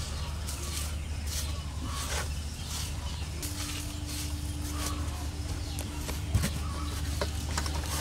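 Outdoor ambience: birds chirping in short high calls over a steady low hum, with one sharp click about six seconds in.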